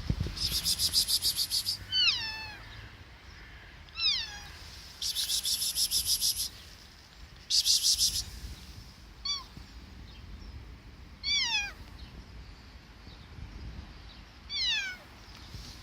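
A kitten meowing five times in short, high calls that fall in pitch, a few seconds apart. Between the calls come three bursts of a rapid, high-pitched pulsing buzz.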